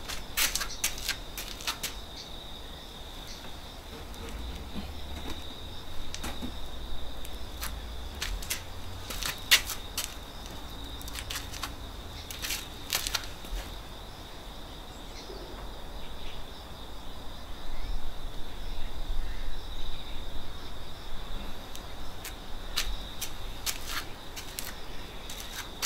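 A steady high insect trill on one pitch, with scattered sharp clicks and knocks from someone moving about close by.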